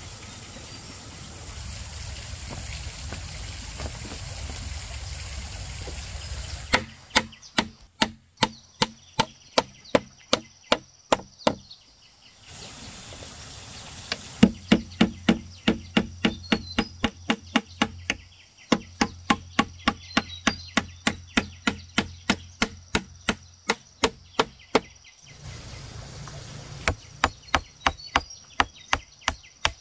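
A knife chopping rapidly on a wooden board, about four strokes a second, in three runs with short pauses between. It follows a steady rushing noise in the first few seconds.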